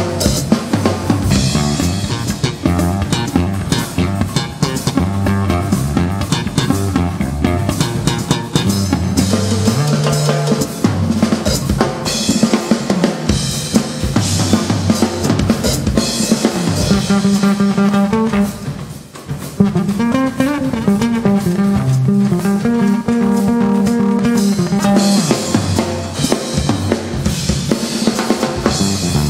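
A live band playing, led by a drum kit with snare, bass drum and rimshots, with guitar underneath. The sound drops away briefly about two-thirds of the way through, then comes back in.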